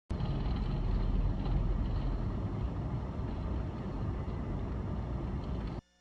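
Steady low rumble of a car driving on a snowy, icy road: road and engine noise from the vehicle doing the filming. It cuts off suddenly near the end.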